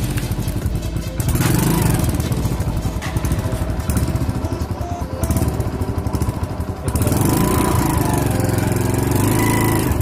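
Motorcycle engine running as the bike rolls over a keypad phone, swelling louder about a second in and again about seven seconds in.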